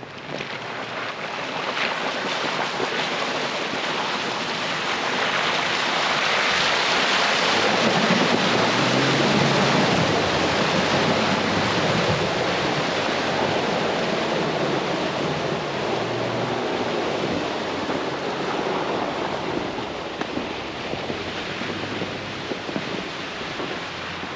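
Jeep Wrangler JK driving a snowy, muddy trail: a steady rush of tyres through slush and wind noise, swelling for several seconds in the middle, with the engine running low underneath.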